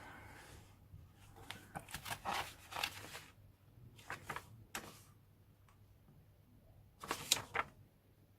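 Pages of a hardback book being turned and handled: paper rustling and flapping in several short spells, the busiest a second or two in and again about seven seconds in, with quiet gaps between.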